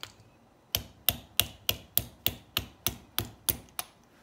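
Hammer tapping lightly and quickly on the end of a socket extension, driving a stuck, corroded battery out of an LED Mini Maglite's tube. After a brief pause there are about a dozen sharp metallic taps, roughly three a second, that stop shortly before the end.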